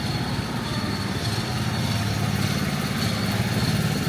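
Steady low rumble with a thin, high, steady whine above it, without clear starts or stops.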